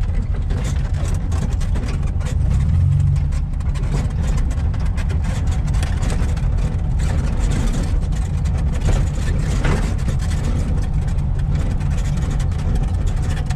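VW Fusca (Beetle) 1600 dual-port air-cooled flat-four engine running as the car drives, heard from inside the cabin. It grows louder for about a second, about three seconds in.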